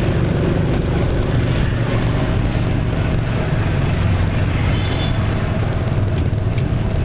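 Motorbike ride through dense city traffic: a steady low engine rumble with road and wind noise, and the surrounding motorbikes and cars running close by.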